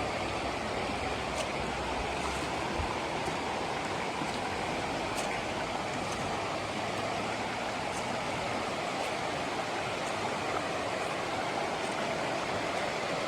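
Mountain river rushing steadily over rocks, an even splashing roar with small sharp splashes flicking through it.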